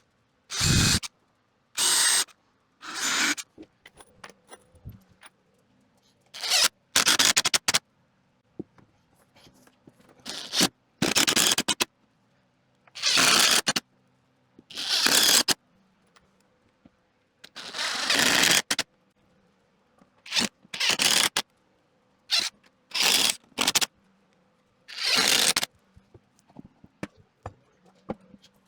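Power drill driving screws into wood in about fifteen short bursts, each under a second, with pauses between them, as the sides of the wooden housing are fastened to the front.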